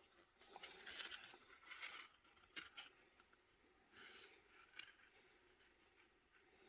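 Faint rustling of paper being handled, in short bursts over the first two seconds and again about four seconds in, with a couple of light clicks.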